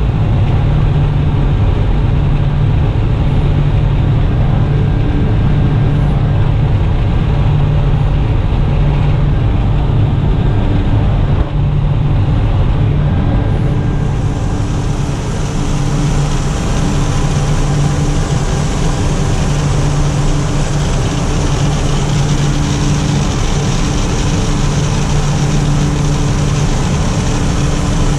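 Aircraft engine drone heard from inside the cabin, a steady low hum that pulses slowly and regularly. A higher hiss joins about halfway through.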